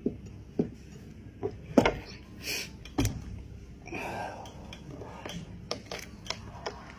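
Close-miked eating of a goat head: a string of sharp clicks and knocks against dishes, with short rustling smears between them.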